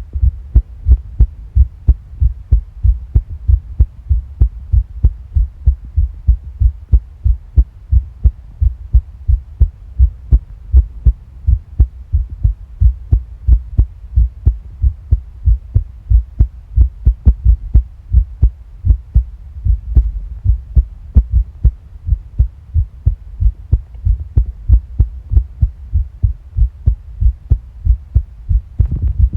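Human heartbeat recorded close against the body: a steady run of regular low thuds over a low hum.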